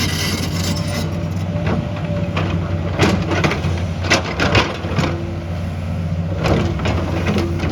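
Heavy construction machine's diesel engine running steadily, with several sharp knocks and cracks, clustered about three to five seconds in and again near six and a half seconds.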